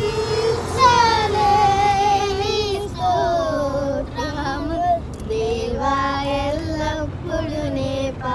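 A young girl singing a Telugu Christian song in held, gliding phrases, over the low rumble of a car cabin on the move.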